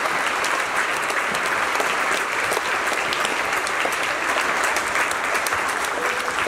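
Audience applauding steadily: a large crowd of schoolchildren and guests clapping as veterans stand to be honoured.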